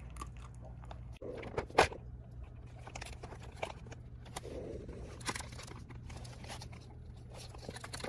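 A puppy working a plastic nose-work puzzle feeder. Its nose, paws and teeth push the sliding pieces and work at the edges, making irregular clicks, knocks and scrapes, with a sharp plastic clack about two seconds in.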